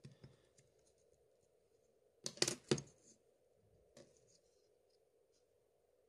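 Small sharp clicks and taps of plastic and metal parts as fingers press components onto a Samsung Galaxy S3 smartphone's motherboard: a quick cluster of clicks about two seconds in and one more about four seconds in. A faint steady hum runs underneath.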